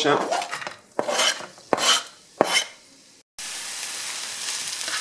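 Chopped onion scraped off a plastic cutting board into a non-stick frying pan, a few short scrapes and knocks. About three seconds in, the onion starts sizzling steadily in hot oil as a spatula stirs it.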